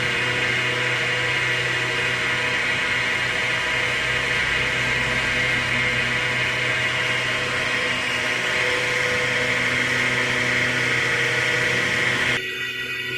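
Wood lathe running with a steady, high mechanical whir over a low hum. Near the end it cuts off abruptly and a quieter, different sound takes over.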